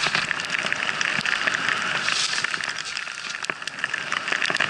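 Skis running through deep powder snow: a steady rushing hiss dotted with many small crackles.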